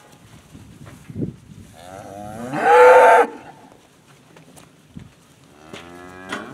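Charolais cow mooing once, loud, about two seconds in and lasting about a second and a half, with a few faint knocks around it.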